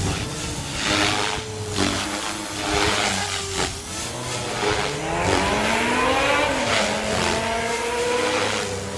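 Remote-control helicopter in flight, its motor and rotor pitch rising and falling as it manoeuvres.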